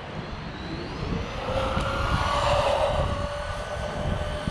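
Brushless electric motor and drivetrain of a Redcat Volcano EPX Pro 1/10-scale RC buggy whining under throttle on a 2S battery during a speed run. The pitch rises over the first second or so, then holds steady, loudest a couple of seconds in, over a low rumble.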